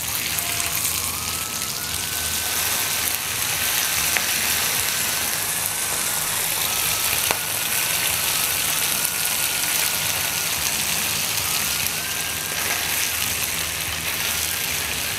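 Pounded beef slices sizzling steadily in hot oil on a ridged grill pan. A faint wavering whine sits underneath, and there is a single sharp click about seven seconds in.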